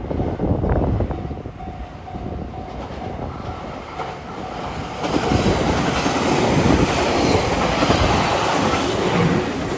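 Level-crossing warning bell ringing in short repeated tones as a train approaches. About five seconds in, the train passes over the crossing, loud enough to drown out the bell.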